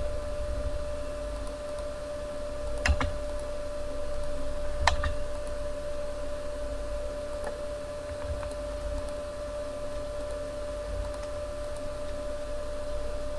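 A few clicks at a computer desk, two sharper ones about three and five seconds in, over a steady electrical hum and low background rumble.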